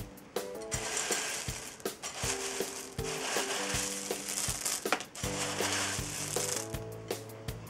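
Dry frosted Lucky Charms cereal, oat pieces and marshmallows, rustling as hands stir and scoop through it in a glass bowl, over background music with a steady beat. The rustling starts about a second in and stops shortly before the end.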